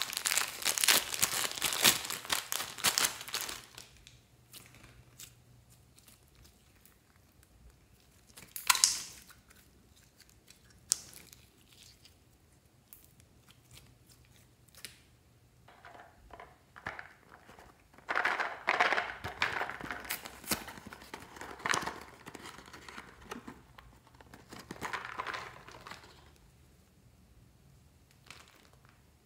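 A plastic zip-lock bag crinkles and rustles for the first few seconds as clear slime is squeezed out of it. After that come scattered soft clicks, one sharp crackle, and then a longer stretch of crinkling and crackling past the middle.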